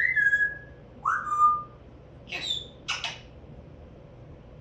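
African grey parrot whistling: two held whistles, each sliding down in pitch and then holding steady, followed by two short, harsher calls a couple of seconds in.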